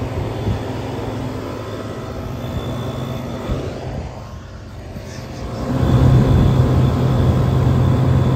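Vintage window air conditioner running in cooling, its compressor humming steadily with the fan running, a faint steady whine over it. The hum gets clearly louder about two-thirds of the way through.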